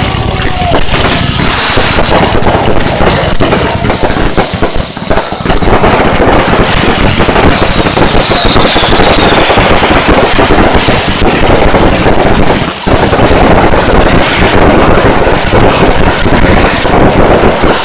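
Fireworks going off in a loud, continuous barrage of crackling and popping. High whistles falling in pitch cut through three times.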